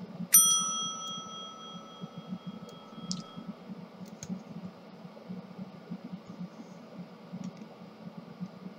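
A single bright ding that rings out over about three seconds, followed by faint small clicks and rustling from the plastic toner cartridge being handled and pried at.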